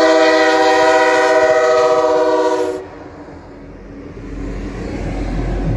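Alaska Railroad EMD SD70MAC diesel locomotive's air horn sounding a steady, loud multi-note chord for almost three seconds, then cutting off sharply. A low rumble of the passing train builds after it.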